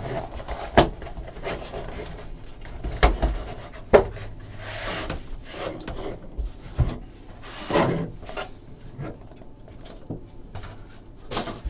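Hands opening a cardboard trading-card box and handling what is inside: cardboard sliding and rubbing, with scattered taps and knocks as pieces are set down on the table.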